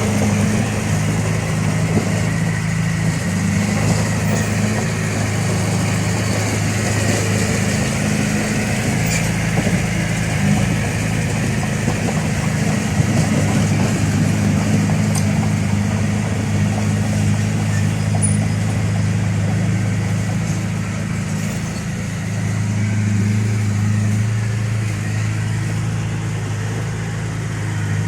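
Diesel engine of heavy earthmoving equipment running steadily, its note shifting slightly about two-thirds of the way through.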